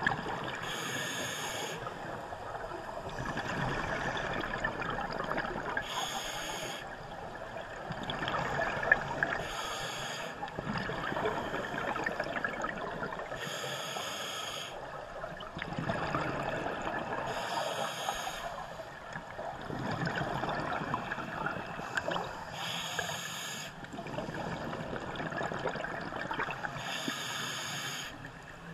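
Scuba regulator breathing underwater: a short hiss of each inhalation about every four seconds, seven breaths in all, with the bubbling rush of exhaled air between them.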